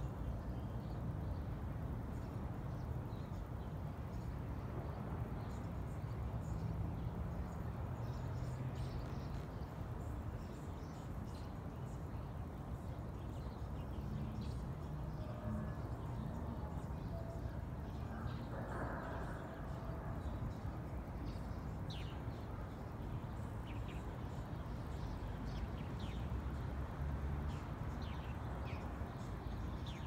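A steady low rumbling drone with faint humming tones in it. It is an unexplained noise that seems to come from one direction.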